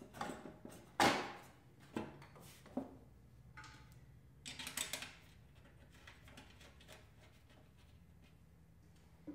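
Knocks and clicks from a garden tractor's engine side panel being handled and seated against the frame, the loudest knock about a second in, followed by a short scraping rustle around five seconds in.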